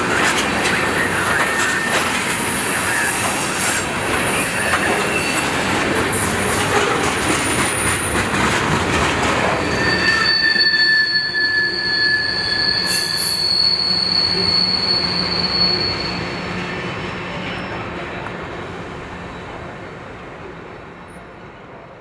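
Freight train of loaded tank cars rolling past, wheels rumbling and squealing on the rails. About ten seconds in the rumble drops and a steady high squeal holds for a few seconds, then the sound fades away.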